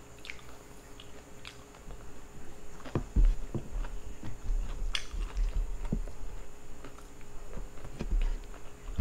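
Close-miked eating sounds: chewing while garlic-buttered shrimp is pulled apart and peeled by hand. Scattered small clicks and crackles of shell and sticky fingers grow louder from about three seconds in.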